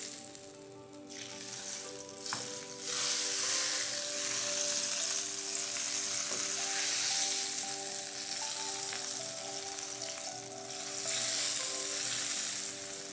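Hot red-pepper oil sizzling as it is poured from a small copper pot onto cold yogurt-covered pasta in a metal tray. The sizzle is lighter at first, swells about three seconds in and keeps going in waves as more is poured.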